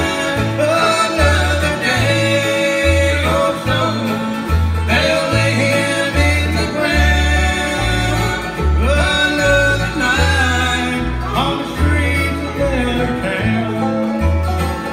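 Bluegrass string band playing live, an instrumental passage: the bass alternates between two low notes about twice a second under strummed acoustic guitar, with banjo and fiddle carrying sliding melody lines on top.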